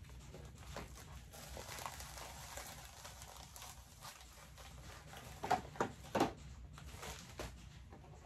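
Plastic mailer bag crinkling as it is handled and tipped out, then three quick knocks as small cosmetics boxes drop onto the table.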